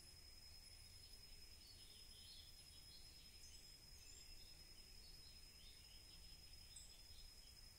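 Near silence: faint outdoor ambience with a few scattered distant bird chirps and a thin, steady high-pitched tone.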